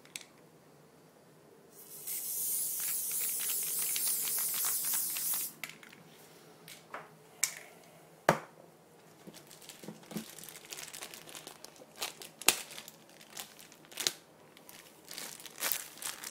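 Ironlak aerosol spray-paint can spraying in one steady hiss of about three and a half seconds, starting about two seconds in. Scattered clicks and taps follow.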